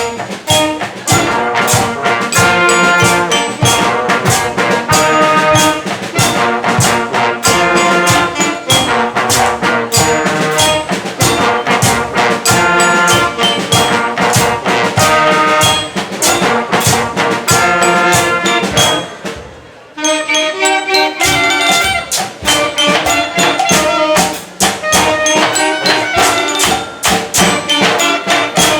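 Children's school band playing live, brass over drums with a steady beat. The music breaks off briefly about two-thirds of the way through, then comes back in.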